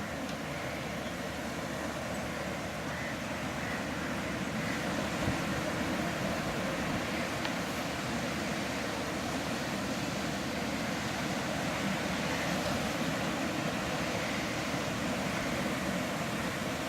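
Steady noise of sea surf and wind, an even wash with no distinct events.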